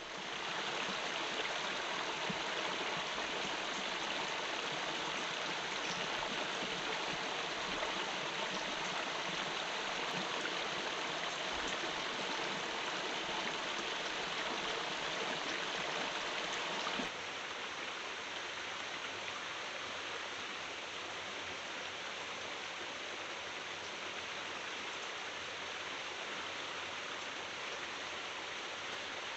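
Steady rushing water, an even hiss with no pauses, stepping slightly quieter and losing its low rumble about seventeen seconds in.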